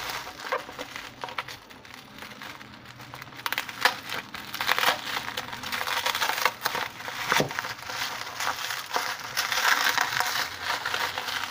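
Plastic bubble wrap crinkling and rustling as hands pull it open and unwrap it, with many small clicks. It is fainter at first and grows louder and busier from about four seconds in.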